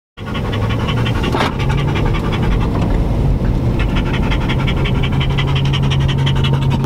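A dog panting fast and steadily close by, over the steady low hum of a truck's engine and road noise inside the moving cab.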